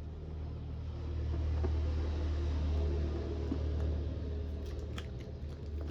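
Low rumble of a passing vehicle, swelling over the first two seconds and fading toward the end, with a few faint clicks near the end.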